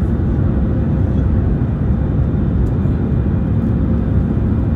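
Airbus A319-100 jet engines heard inside the cabin over the wing during the climb after takeoff: a loud, steady low rumble with a faint hum above it.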